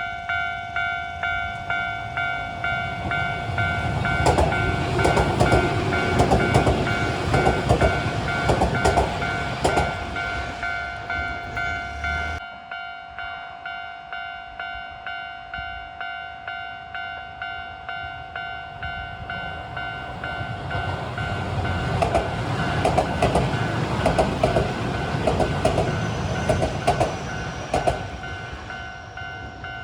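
Japanese level-crossing alarm ringing over and over in an even, pulsing clang while Keio Inokashira Line commuter trains pass, their wheels rumbling and clattering over the rail joints. One train goes by in the first half; after a sudden cut the alarm rings on with less train noise, then a second train passes.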